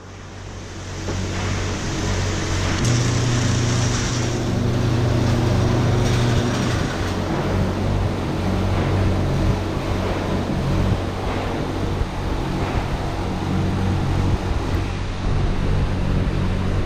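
A motor vehicle running with a steady low engine hum and road noise, swelling up over the first couple of seconds.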